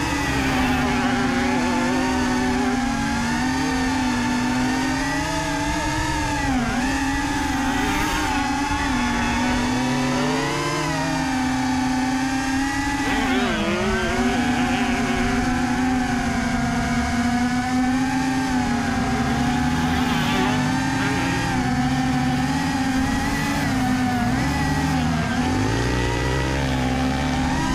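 Quadcopter drone's propellers humming at a steady pitch, dipping briefly a couple of times as the throttle changes. Dirt bike engines rev faintly underneath at times.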